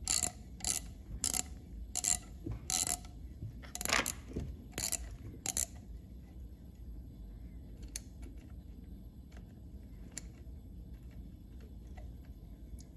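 T-handle tap wrench clicking as the tap is backed out of newly cut threads in a chainsaw engine case. There are about ten sharp clicks, roughly one and a half a second, over the first six seconds, then only a couple of faint ticks.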